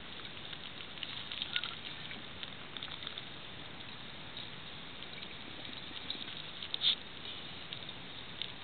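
Faint crackling and scattered light clicks as a glass pipe is lit and smoked, with one sharper click near the end.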